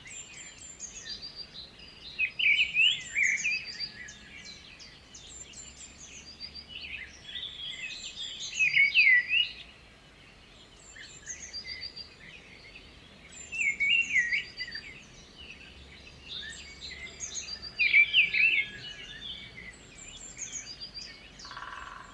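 Birds singing: a loud, rapid song phrase about every four to five seconds, with softer high chirps in between.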